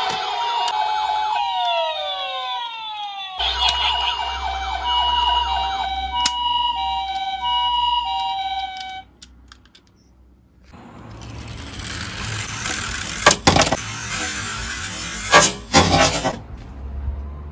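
Electronic two-tone ambulance siren, alternating a high and a low note, with falling sweeps over it for the first few seconds; it stops about nine seconds in. After a short pause, a small die-cast toy car rolls down a wooden board with a steady rolling noise and tips over, with several sharp clacks near the end.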